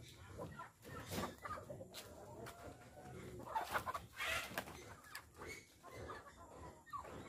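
Native chickens clucking, short scattered calls, with a few light knocks.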